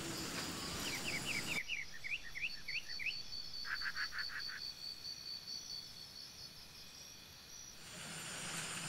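Outdoor evening ambience of birds and insects. A high, steady, pulsing insect trill runs throughout, while a bird gives a quick run of about nine short chirps in the first three seconds, followed by a brief rapid series of lower notes. The background noise drops off suddenly about one and a half seconds in and comes back near the end.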